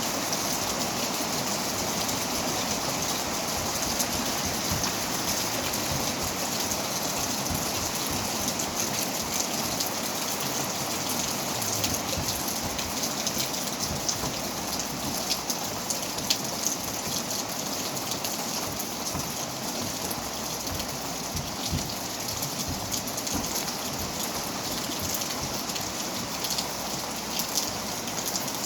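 Steady rain falling, with scattered sharper drop ticks on a surface.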